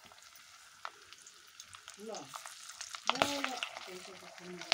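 Bay leaves and whole spices frying in hot oil in a steel karahi: a steady sizzle, with the scrape and clicks of a ladle stirring against the pan.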